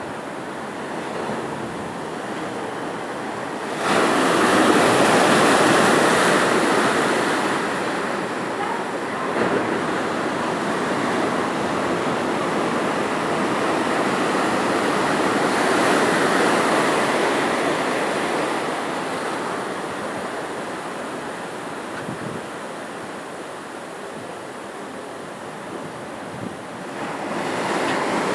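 Ocean surf: waves breaking and washing ashore in a continuous rushing noise. It swells loudly about four seconds in, again midway, and once more near the end.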